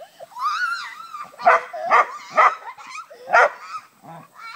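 Border collie giving a high wavering whine, then four short sharp barks in quick succession.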